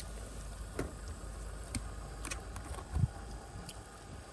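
Pot of water at a rolling boil on a portable gas stove, bubbling with a few scattered small pops and ticks, and a soft thump about three seconds in.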